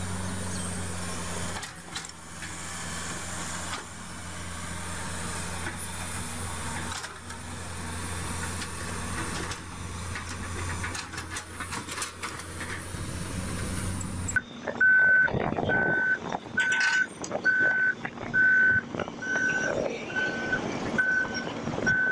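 Excavator's diesel engine running with a steady low hum. About two-thirds of the way in, it gives way to a construction machine's reversing alarm beeping at an even pace, a little more than once a second, over uneven mechanical noise.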